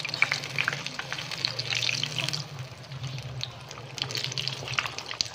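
Pinwheel samosas deep-frying in hot oil in a kadai: a dense sizzle full of small crackles, over a steady low hum.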